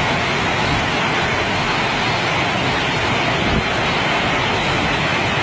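Heavy rain falling in a steady, loud rush.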